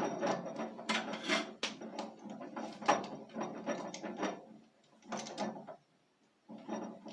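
Irregular metallic clicking and rattling of a woodturning lathe chuck being handled and tightened onto a blank, with short pauses.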